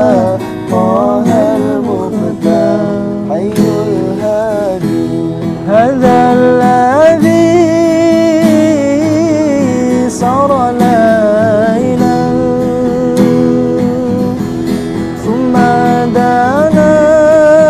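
Acoustic guitar strummed under a voice singing an Arabic sholawat, the melody drawn out and ornamented across long held notes.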